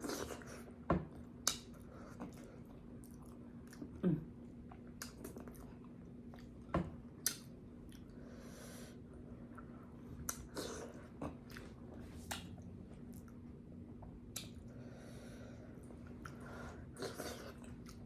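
Close-up mouth sounds of eating boiled potatoes and corn: chewing with scattered wet lip smacks and clicks, a few of them sharper and louder, and two short soft breaths or slurps.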